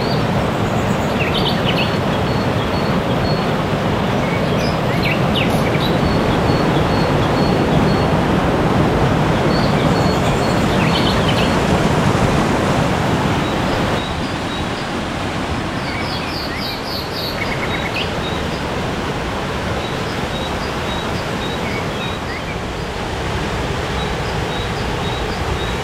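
Steady rush of a waterfall, with small birds chirping repeatedly over it. The rush drops a little in level about halfway through.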